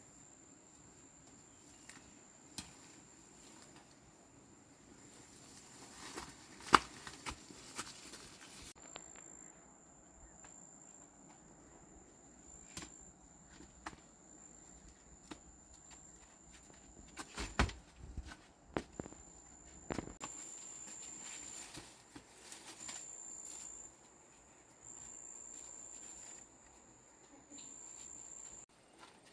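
A thin, high insect buzz, steady at first and then coming in on-and-off stretches in the second half, under scattered knocks and rustles; the sharpest knock comes about seven seconds in, and a cluster of them near eighteen seconds.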